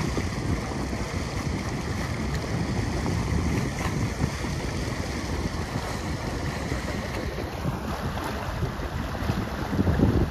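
Wind noise on the microphone and water rushing along the hull of a moving boat, a steady rumbling hiss. A faint steady high whine sits under it and fades out about three-quarters of the way through.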